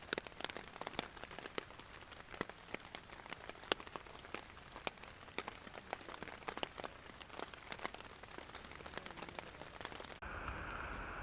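Rain falling on a surface: many sharp, irregular drop hits over a soft hiss. About ten seconds in it cuts off abruptly, giving way to a steady rushing sound.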